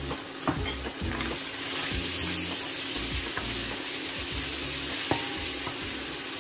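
Shredded vegetables and meat with tomato sauce sizzling in a wok as they are stir-fried, the sizzle growing louder about a second and a half in, with a few knocks of the spatula against the pan.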